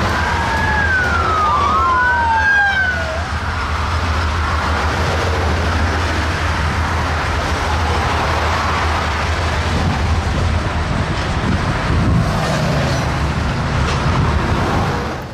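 Loaded freight hopper cars rolling across a steel girder bridge with a steady low rumble, mixed with the hiss of highway traffic passing beneath. In the first three seconds a high wailing tone glides down and up, like a siren.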